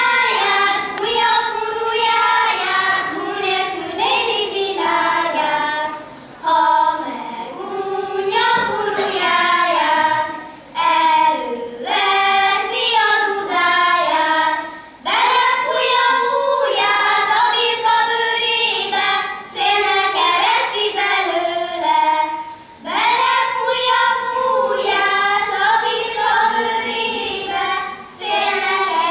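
Children singing a song, melodic phrases separated by short pauses for breath.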